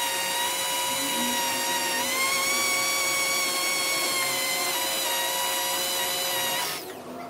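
Hand-held electric drill running steadily as its bit slowly bores into an oiled steel threaded rod under light pressure. Its pitch rises a little about two seconds in, and the drill stops near the end.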